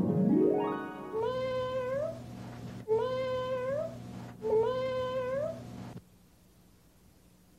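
A short musical sting: a rising sweep, then three held notes, each bending upward at its end, over a low steady drone. It cuts off about six seconds in.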